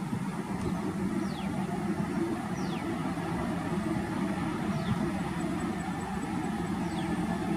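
Boeing 737-800's CFM56 jet engines heard from a distance as a steady low roar while the airliner rolls out along the runway after landing. A bird's short falling whistle comes four times over it.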